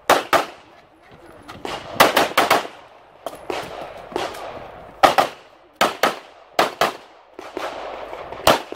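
CZ Shadow 2 pistol fired in quick double-taps during a practical shooting stage: sharp shots in pairs about a quarter second apart, about six pairs with pauses of one to three seconds between them.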